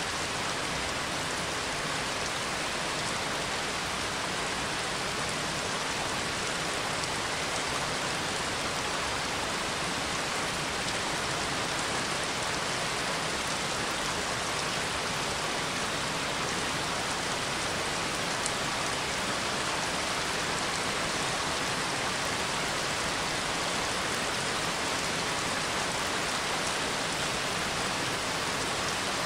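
Steady rain falling, from a rain field recording laid over as background ambience.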